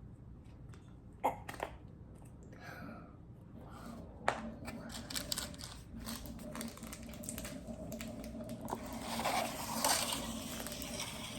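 Plastic slime containers and decoration packets being handled and opened: crinkling and rustling with a few sharp clicks, the rustling growing louder near the end.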